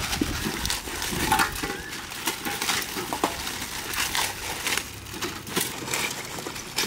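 Dry Maggi instant noodle blocks being crushed by hand, with plastic noodle packets crinkling as they are opened: irregular crunching and crackling.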